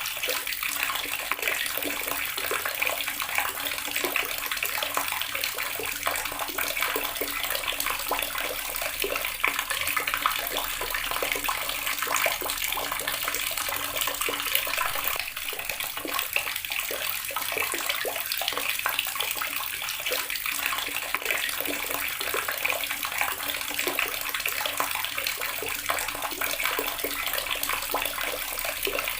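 Water running steadily from a tap and splashing into the basin below, a continuous, even hiss.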